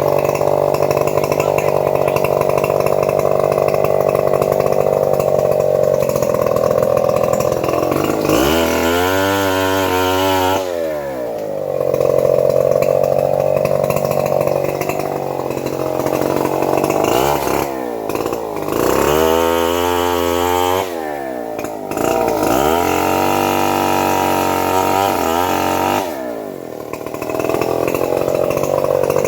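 Small engine of a power saw running steadily, its pitch dropping and climbing back up twice, about eight and nineteen seconds in.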